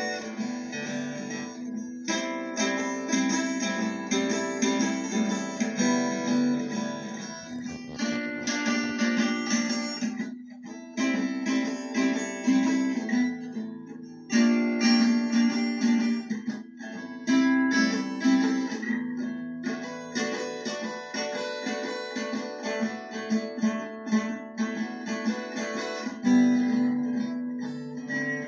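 A guitar played from an old home recording: picked notes and strummed chords, with brief breaks about ten and fourteen seconds in.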